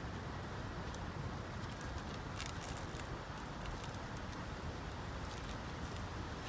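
Chipmunk rummaging in a heap of peanuts and seed, with a brief cluster of small clicks and rustles about two and a half seconds in. Underneath is a steady low outdoor rumble and a faint high pulsing about four times a second.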